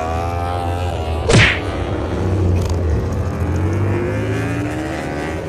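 Motor engine sound rising and falling slowly in pitch over a steady low hum, with one sharp whack about a second in.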